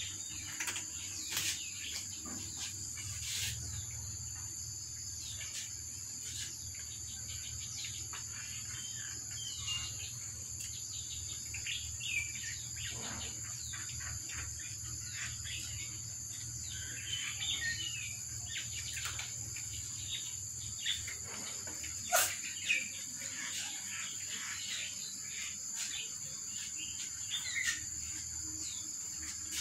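Steady high-pitched drone of insects with birds chirping now and then, over short clicks and crunches of cats chewing dry kibble on a tiled floor.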